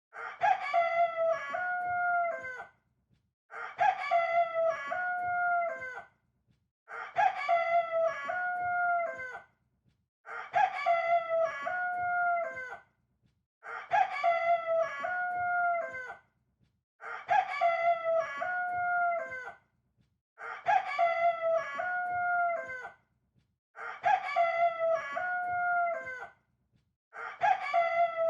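Rooster crowing: the same cock-a-doodle-doo repeated about every three and a half seconds, nine times, each crow about two and a half seconds long with short silent gaps between.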